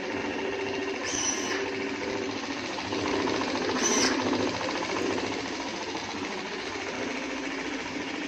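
SWDK D260 handheld electric mop running on a hard tile floor, its motor driving the pads back and forth with a steady buzz. Twice, about a second in and again about four seconds in, its sprayer briefly hisses out a mist of water ahead of the pad.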